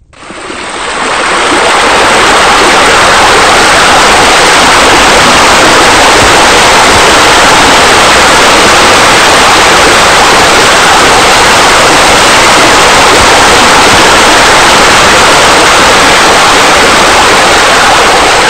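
Loud, steady rush of falling water, like a raised spa spilling over into a swimming pool, fading in over the first couple of seconds.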